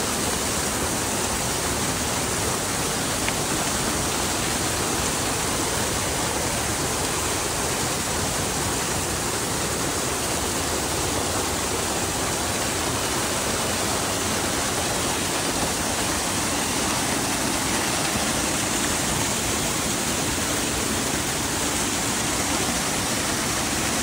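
Waterfall pouring over rock ledges into a shallow pool: a steady rush of falling and splashing water.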